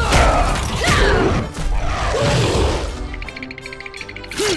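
Background music with dubbed-in toy-fight sound effects: mechanical clanks and knocks, a hiss over the first couple of seconds, and several short sliding swoop tones.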